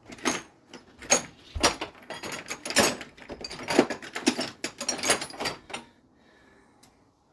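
Metal hand tools clinking and clattering, a quick run of sharp knocks and rattles as a deep socket is picked out and handled, stopping about six seconds in.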